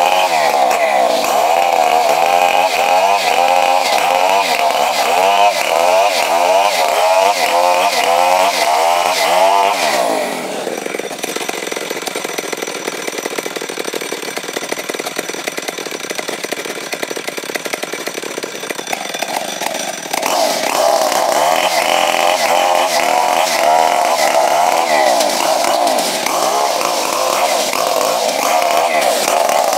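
Two-stroke chainsaw ripping lengthwise along a log, its engine note wavering under load. About ten seconds in, the throttle drops and the saw runs lower and quieter for about ten seconds, then revs back up and cuts again.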